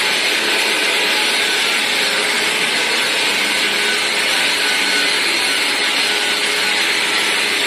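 Handheld electric drywall sander with a dust-extraction hose running against a wall, a steady even whir from the motor, the sanding pad and the suction. This is the wall being sanded smooth ahead of painting.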